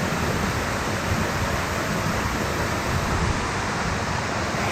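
Waterfall roaring, a steady dense rush of falling water.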